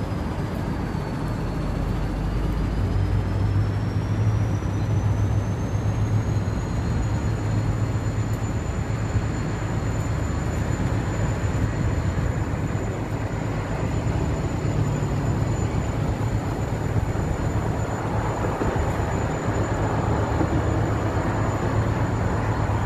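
Steady rumble and hiss of a freight train of open box wagons standing or barely moving on the track, with a low hum and a faint high whine that dips early, then rises and holds steady.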